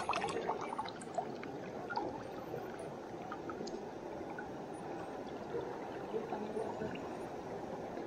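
River water running and gurgling steadily, with a few faint ticks.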